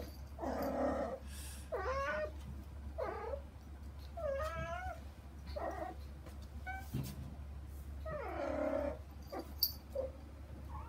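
Kittens meowing again and again, about eight wavering meows a second or so apart, calling to their mother on the other side of a frosted-glass door, over a steady low hum.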